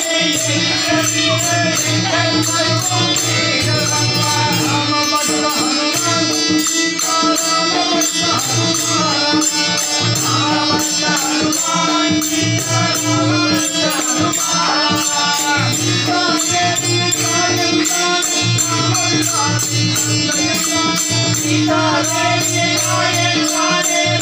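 Devotional bhajan music: singing over a harmonium's held drone, with hand percussion keeping a steady beat of about three strokes a second.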